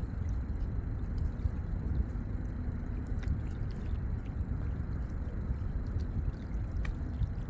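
Lakeside water ambience: a steady, low rumbling wash of water lapping at the shore. There are a couple of faint short ticks, about three seconds in and near the end.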